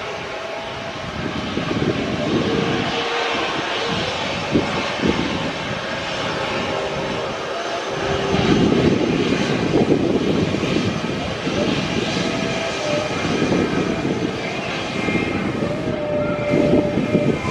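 Jet engines of an Airbus A320 airliner running steadily as it rolls along the runway, getting a little louder about halfway through.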